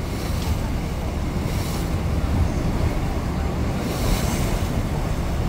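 Wind buffeting the microphone on a moving river cruise boat, over the steady low rumble of the boat running on the water, with gusts swelling about a second in and again near the end.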